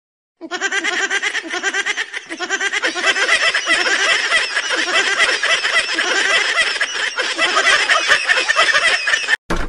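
Rapid, unbroken high-pitched laughter, a fast run of short repeated 'ha' pulses that starts about half a second in, grows louder after a few seconds and cuts off suddenly just before the end.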